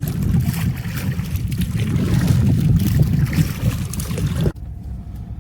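Wind buffeting the microphone out on open water, a loud uneven rumble with some splashing crackle. It cuts off suddenly near the end, leaving a quiet low hum.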